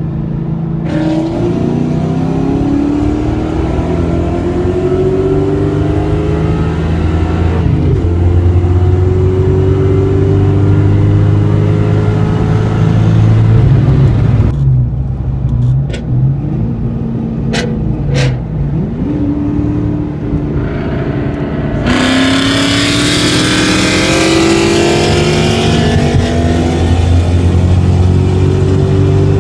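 V8 engines at wide-open throttle, heard from inside a car's cabin: several long pulls with the pitch climbing, each broken by a drop at a gear change. Near the middle the engine eases off and a few sharp clicks are heard, then another hard pull begins about two-thirds through, with louder wind and exhaust noise over it.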